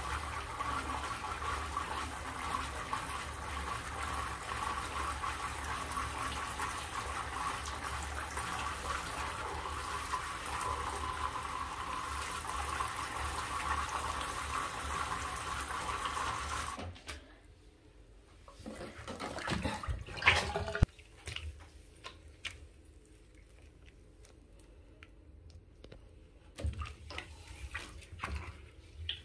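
Water running steadily from a tube into a water balloon, filling it. The flow stops suddenly about two-thirds of the way through, followed by a short burst of handling noise, a sharp click and then faint drips.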